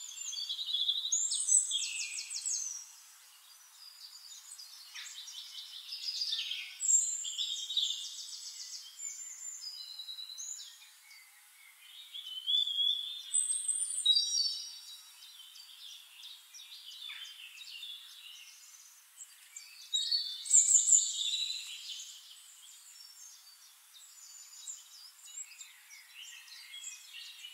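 Songbirds singing: phrases of rapid high chirps and trills, several birds overlapping, in loud bursts with quieter stretches between.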